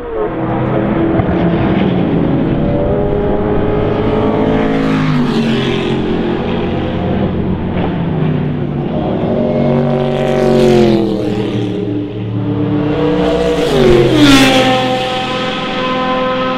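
Sauber Mercedes-Benz C11's 5.0-litre V8 race engine at speed, its note rising and falling in pitch several times. It is loudest about fourteen seconds in, where the pitch drops sharply as the car passes close, then settles to a steadier note.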